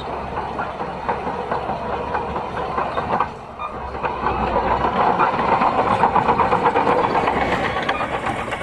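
Crawler bulldozer running with its steel tracks clanking in a rapid, continuous clatter over the engine. The sound drops briefly about three seconds in, then grows louder.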